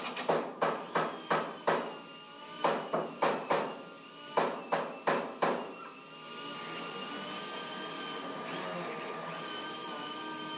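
Hammering on wood: three runs of four or five blows, about three a second. About six seconds in, a small motor starts and runs steadily with a high whine.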